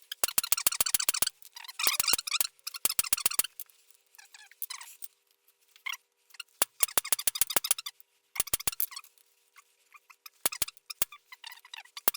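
Forging hammer blows on steel, several quick strikes a second in short bursts with gaps between, each strike ringing bright.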